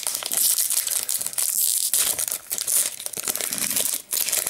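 Foil wrapper of a Pokémon TCG booster pack being torn open and crinkled by hand, a dense run of crinkling and tearing.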